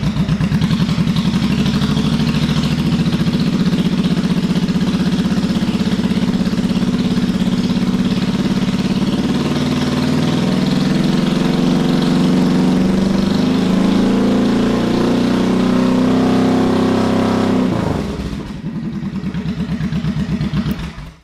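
Honda VT1100's V-twin engine with straight pipes, held at raised revs for a charging-system test. The revs climb slowly from about halfway, then drop back to idle a few seconds before the end.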